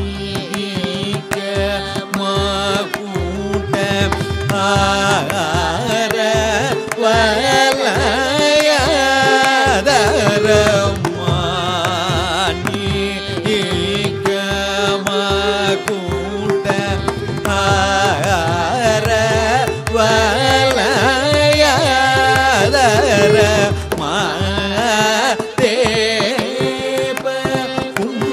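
Carnatic classical music in raga Bhairavi: a male voice sings a richly ornamented melody with quick pitch bends, with violin, over a steady drone. Mridangam and kanjira strokes keep up a running rhythm.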